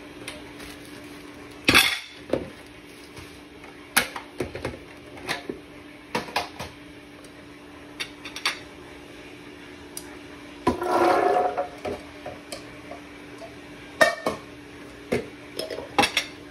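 Kitchen handling sounds: a plastic blender jar and pots knocked and set down, with scattered clinks and taps. About eleven seconds in, a second-long rattling rush as cooked chickpeas are tipped into the blender jar. A faint steady hum runs underneath.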